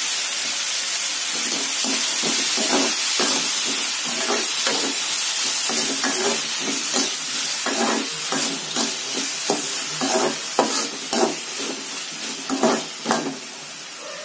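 Vegetables and mushrooms sizzling in a hot metal wok while a spatula stirs and scrapes them against the pan. The sizzle is strong for about the first half, then dies down, leaving a run of quick scraping strokes.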